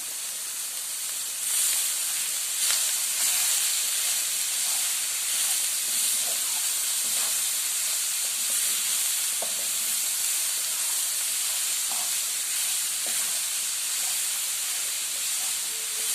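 Chopped onions, garlic and peppers sizzling as they fry in a pan, a steady hiss that grows louder about a second and a half in, with a few faint knocks of stirring.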